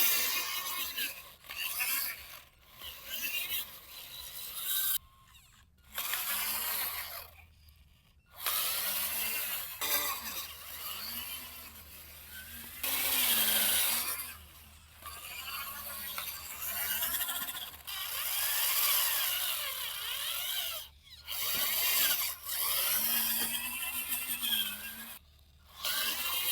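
Small electric motors and gearboxes of radio-controlled toy machines whirring and grinding in stop-start bursts, the whine rising and falling in pitch as they work soil.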